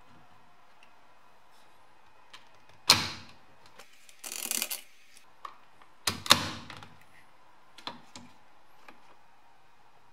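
Plastic air vent being pressed and snapped into a BMW E30 dashboard panel: two sharp clicks about three seconds apart, with a short rattle of plastic clicks between them and a few light taps afterwards.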